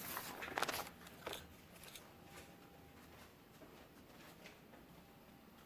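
A few brief rustling and scraping sounds in the first second or so, then quiet room tone.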